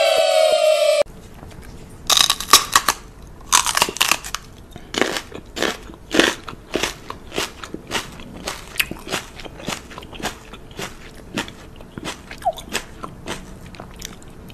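About a second of loud music and voices that cuts off abruptly, then close-up mouth sounds: a run of short crunching smacks and clicks, bunched together at first and then spaced about one or two a second.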